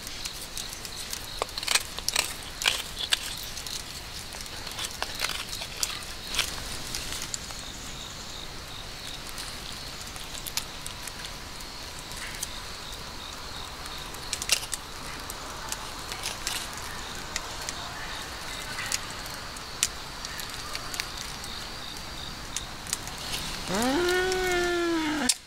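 Carving knife whittling a small piece of wood: short, irregular scraping cuts and sharp clicks, with a wood fire crackling close by. Near the end a drawn-out voice sound rises and then falls in pitch.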